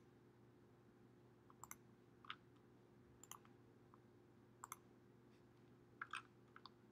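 Faint computer mouse clicks, a handful of scattered single clicks and quick pairs, over a faint steady hum.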